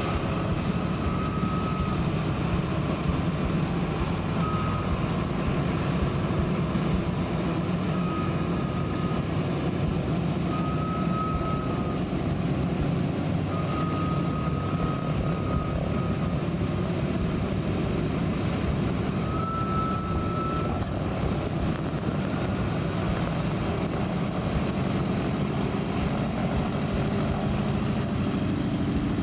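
B-17G Flying Fortress taxiing, its four Wright R-1820 Cyclone radial engines running steadily at low power.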